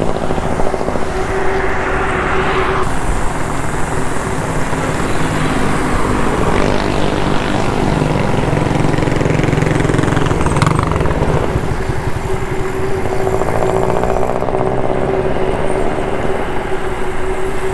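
Wind rushing over the microphone of a camera riding on a moving bicycle, with motor traffic running alongside on the road.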